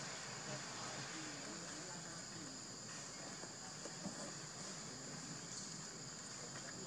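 Insect chorus: a steady, high-pitched drone on two pitches.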